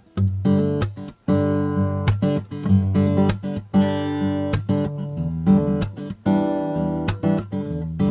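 Tokai Cat's Eyes TCE-30 acoustic guitar, with a solid spruce top and sapele back and sides, strummed in a run of ringing chords. The chords start just after the beginning and pause briefly a little after a second in.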